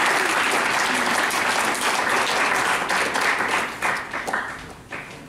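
Audience applauding, a dense sustained clapping that thins out to a few scattered claps about four seconds in.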